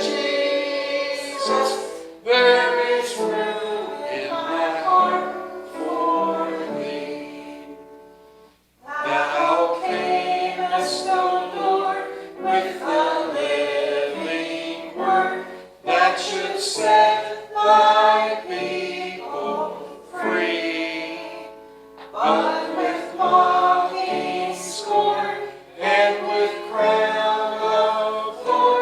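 Choir singing in sustained phrases with short breaks between them, about every six to seven seconds.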